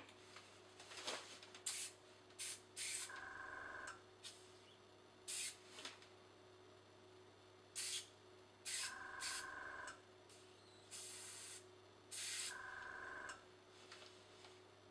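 Dual-action airbrush spraying black acrylic in about eight short hissing bursts, some quick puffs and some about a second long, as test spots go onto paper. A small tankless compressor hums steadily underneath, and a higher whine joins during the longer bursts.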